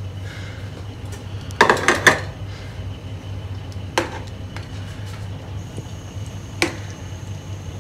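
A metal spoon stirring chicken kurma in a metal cooking pot, clinking against the pot. A quick cluster of clinks comes about one and a half seconds in, then single knocks at about four and six and a half seconds, over a steady low hum.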